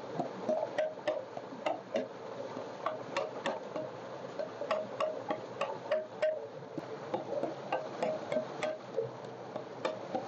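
Wooden pestle pounding fresh mint leaves in a terracotta mortar: irregular knocks, two or three a second, each with a short ring from the clay bowl. A steady rush of pouring water runs underneath.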